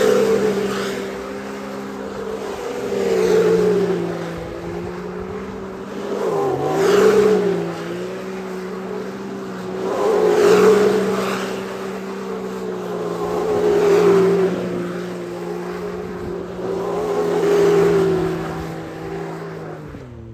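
Can-Am Maverick X3 side-by-side's turbocharged three-cylinder engine held at high revs while spinning donuts, its tyres spinning on gravelly pavement. The sound swells about every three and a half seconds as it circles round, and the revs drop near the end.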